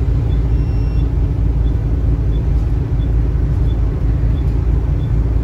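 Volvo B7TL double-decker bus under way, heard from inside on the upper deck: a steady low diesel engine and road rumble with a constant hum. A faint light tick repeats about every two-thirds of a second.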